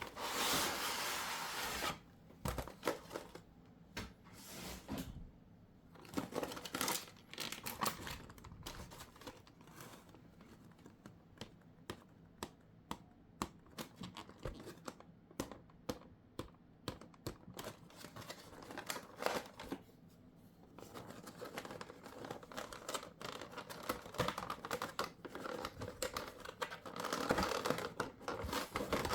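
Packaging of a Pokémon card collection box being handled and torn open by hand: a burst of tearing and crinkling at the start, a long run of small sharp clicks and taps in the middle, then more steady crinkling near the end.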